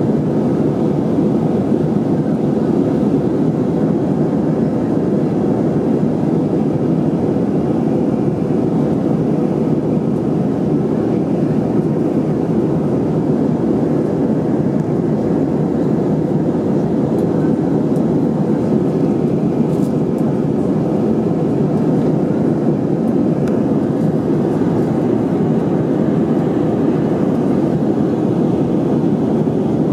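Airbus A319 airliner's engine and airflow noise, a loud, even noise that holds steady in pitch and level.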